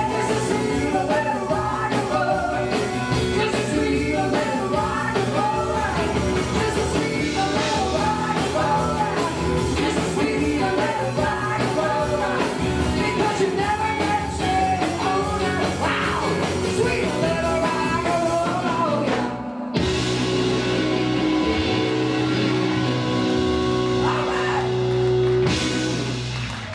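Live rock and roll band playing: electric guitars, bass, drums and keyboard under a woman's lead vocal. About twenty seconds in the band stops for a moment, then holds a long final chord that closes with a burst of cymbals and fades.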